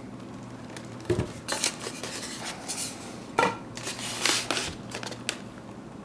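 Styrofoam packing block being handled, turned over and set down on a table: a string of short foam-on-foam scrapes and knocks at irregular intervals.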